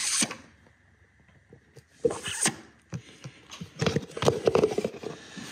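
Handling noises: a plastic jug knocking and rustling against engine parts, with short bursts of clatter around two seconds in and again around four seconds in.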